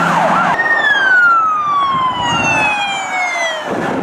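Toy police car's electronic siren. A fast warbling wail switches, about half a second in, to one long tone sliding steadily down in pitch, which dies away near the end.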